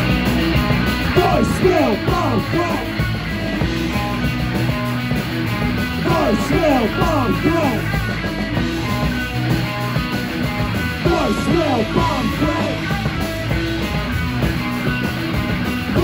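Live punk/noise-rock band playing loud: distorted electric guitars over drums, with clusters of swooping, sliding notes coming back every few seconds.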